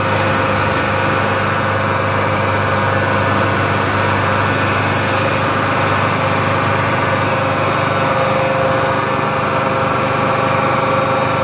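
SBC-480 Altai cant-making machine's saw shafts, stacked with circular saw blades and driven by electric motors through belts and cardan shafts, spinning free with no log in the cut. The sound is a steady machine hum with a clear held tone over it and no change in load.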